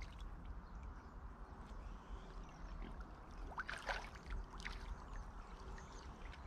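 Small water splashes and lapping at the edge of a jetty, with a short cluster of splashes about three and a half seconds in, over a steady low wind rumble on the microphone.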